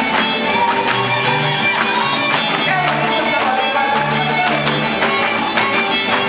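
Live huapango music from a son huasteco string ensemble: strummed guitars keep an even rhythm under a bass line, while a violin plays a melody that slides in pitch partway through.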